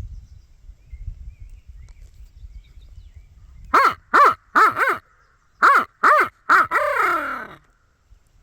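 A crow cawing: two sets of three short, harsh caws, the last caw drawn out and falling in pitch. Low wind rumble on the microphone before the calls.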